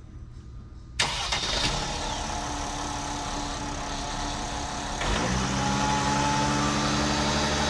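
Mercedes-Benz Sprinter van's engine remote-started from the key fob, catching suddenly about a second in and idling. About four seconds later it steps up to a steady high idle.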